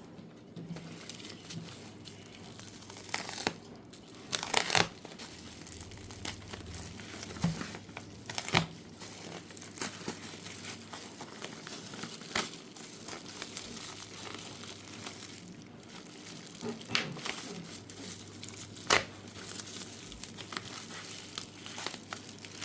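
Product packaging being handled and opened by hand: irregular crinkling and tearing, with a few sharp, louder rips.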